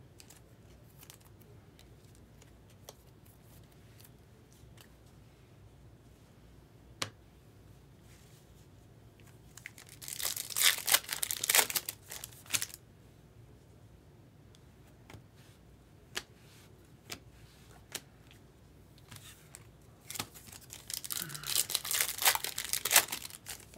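Trading card pack wrappers being torn open and crinkled by hand. The tearing comes in two bursts, about ten seconds in and again near the end, with a few faint clicks in between.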